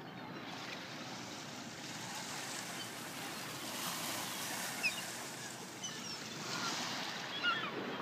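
Surf washing steadily on the shore, with scattered short calls from a flock of gulls overhead, a few more of them together near the end.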